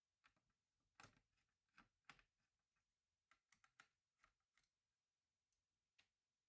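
Faint, scattered clicks and taps of small hard parts and tools being handled while a laptop is worked on: two louder taps about a second apart early on, a quick cluster of light clicks in the middle, and one more tap near the end.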